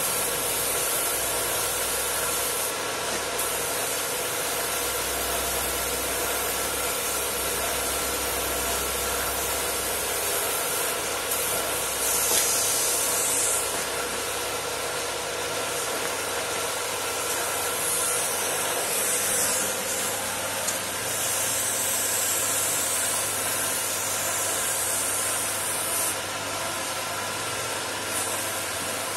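Compressed-air paint spray gun hissing in several bursts, a few seconds each, over a steady machine hum.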